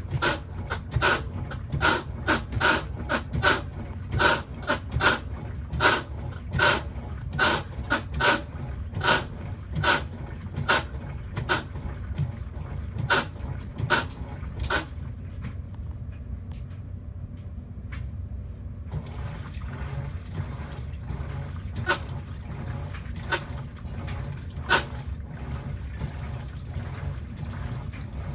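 Whirlpool washing machine running with a grinding noise: a low rumble with water sloshing, and through the first half a rhythmic scrape or knock about twice a second. After a brief lull it continues with only occasional knocks.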